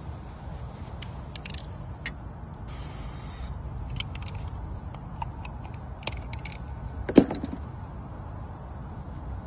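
Aerosol spray-paint can hissing in one short burst of just under a second, painting the rim of a golf hole white through a cup template. Scattered small clicks and rattles come before and after it, and a single dull thump sounds about seven seconds in.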